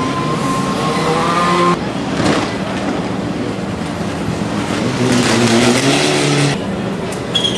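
Rally car engine revving and accelerating, the pitch climbing in places. The sound changes abruptly twice.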